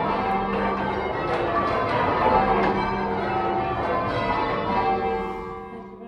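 Ring of eight tower bells, cast in 1911 by John Warner and Sons, rung in change ringing: strikes follow one another and overlap in a steady stream. Near the end the strikes stop and the bells' hum dies away as the bells are stood.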